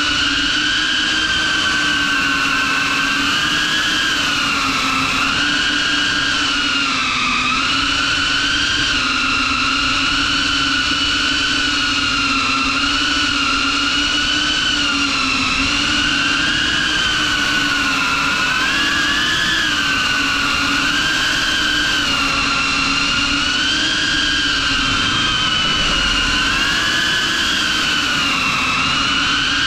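6S FPV quadcopter's brushless motors and propellers whining steadily, up close, the pitch wavering up and down every second or two with the throttle.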